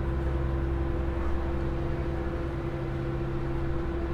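Car ferry's engines running steadily under way. A constant drone with a deep hum and a clear, steady tone above it that does not change.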